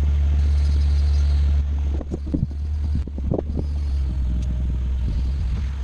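Bobcat skid steer engine running steadily with a low hum, with a few knocks and clanks about two to three and a half seconds in.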